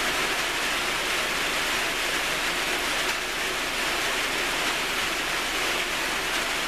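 Ginger, palm-sugar and lime-juice mixture boiling in a pan, a steady bubbling hiss as it simmers down and thickens.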